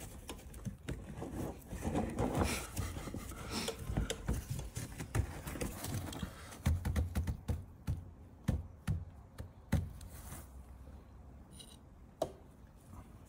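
Irregular clicks, taps and scrapes of a TD5 fuel pump cradle being worked into the opening of a fuel tank by gloved hands and a screwdriver, busy at first and thinning out near the end.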